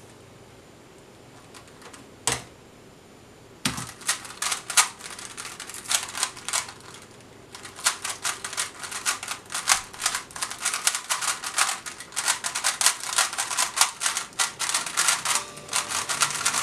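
Rubik's Cube being turned fast with one hand: a rapid clatter of plastic clicks and clacks from the cube's layers. It starts about three and a half seconds in after a single click, with a brief pause in the middle.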